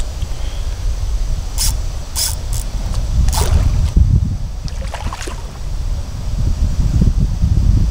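A low rumble of wind on the microphone, with several short, sharp splashes over the first five seconds as a hooked common carp thrashes at the water's surface.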